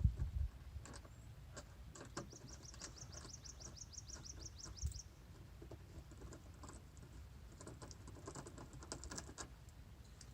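Small clicks and taps of a hand tool and screws as two screws are backed out of a plastic wheel-well splash guard, with a knock at the very start. About two seconds in comes a quick run of high rising squeaks, roughly four a second, lasting about three seconds.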